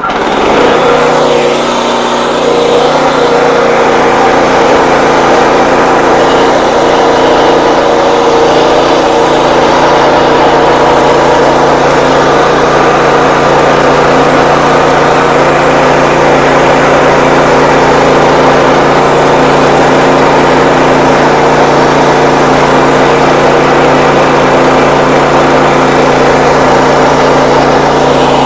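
WoodMizer LX55 band sawmill running steadily under load, its engine and band blade working through a dense hickory log.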